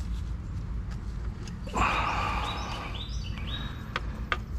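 PCV valve squeaking and scraping in its rubber grommet as it is worked out of the valve cover with pliers, for about two seconds starting near the middle, with a few light clicks.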